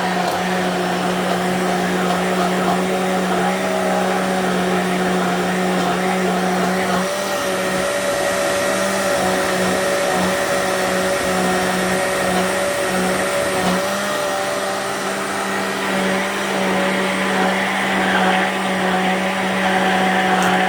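Arno LSA electric blender running continuously: a steady motor whine with a slight shift in pitch about a third of the way in.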